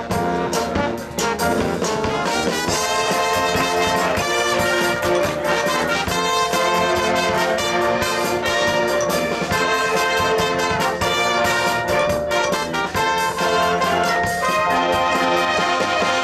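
High school marching band playing: brass (trumpets and trombones) holding full chords, punctuated by frequent drum hits.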